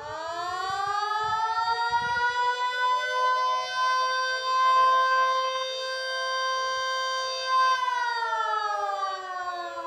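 Small red LK-145 electric warning siren sounding the attack signal in a slow wail. Its pitch rises over about three seconds, holds steady for about five, then falls away near the end.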